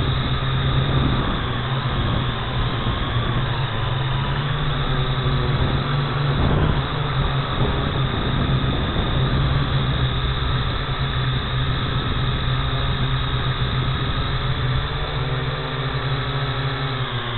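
A drone's motors and propellers running in flight, heard from a camera mounted on the drone itself: a loud, steady hum that shifts slightly in pitch, over a rough low rumble.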